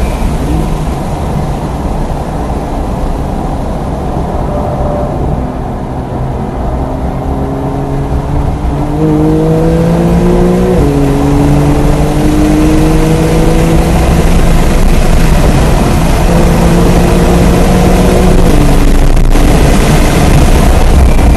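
Porsche 992 Carrera S twin-turbo flat-six heard from inside the cabin under road and wind noise. The engine is quieter while the car slows into a corner, then it accelerates hard, its pitch rising through the gears with a sharp drop at each upshift, about halfway through and again near the end.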